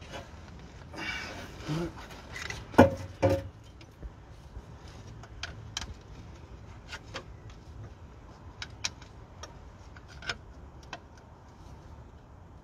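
Metal hand tools clinking on the engine's alternator bracket and pulleys. Two sharp metallic clanks come about three seconds in, then scattered lighter clicks and taps.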